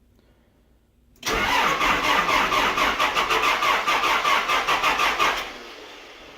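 Caterpillar backhoe's cold turbo-diesel engine cranked over by the starter in freezing weather, with a rapid, even beat of cranking strokes, starting about a second in. It cranks for about four seconds without catching, then the starter lets go and the sound dies down.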